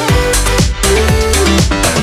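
Electronic dance music with a steady beat.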